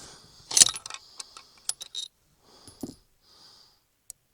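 A series of sharp metallic clicks and clinks from the bolt of a Savage Model 10 BA Stealth .308 bolt-action rifle being worked after a shot. The loudest clack comes about half a second in, followed by lighter ticks and clinks.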